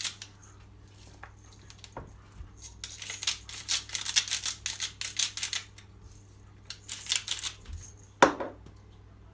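Hand-twisted spice grinder crunching and clicking rapidly as it grinds seasoning onto a raw beef joint, in two spells. A single sharp knock near the end.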